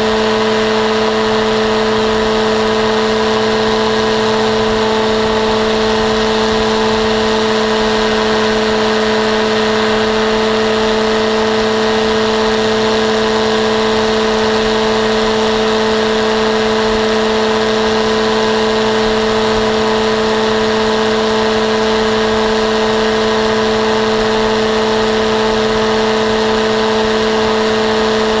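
Paramotor trike's engine and propeller running at a steady throttle in flight, a loud, even drone whose pitch holds constant throughout.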